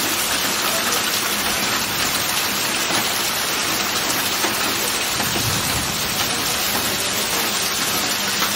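Heavy thunderstorm rain pouring steadily: a dense, even hiss with no breaks.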